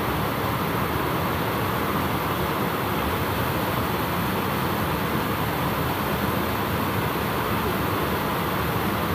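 Steady rush of water spilling over a small stone weir and flowing down a shallow channel.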